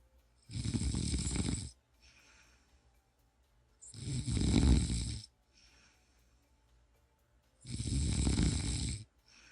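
A person snoring in a slow, even rhythm: three loud, rough snores about four seconds apart, each followed by a fainter breath.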